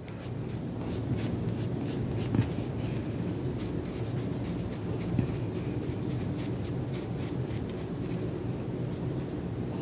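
A nail buffer block rubbed briskly back and forth over a fingernail in short scratchy strokes, about three a second, stopping near the end. It is buffing leftover press-on nail glue off the natural nail. A steady low hum runs underneath.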